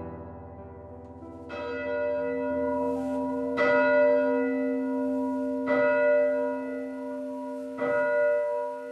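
Church bell tolling slowly: four strikes about two seconds apart, each left to ring on.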